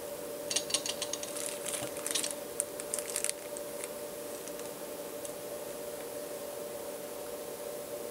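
Light clicking and rattling of small metal parts as the mini drill press and its power leads and clips are handled, from about half a second in to about three seconds in, over a steady hum.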